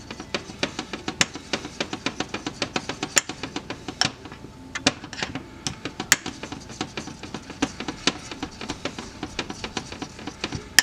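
A metal fork clicks rapidly against the sides of a glass dish as it whisks a thick sauce. There are several quick, uneven clicks a second, with a short lull about halfway through.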